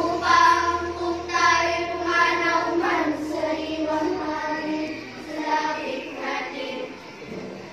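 A song sung by a child's voice, with long held notes over light musical backing.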